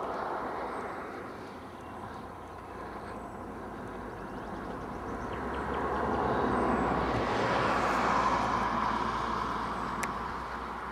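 Car driving: a steady rush of road and engine noise that swells about six seconds in and eases again near the end.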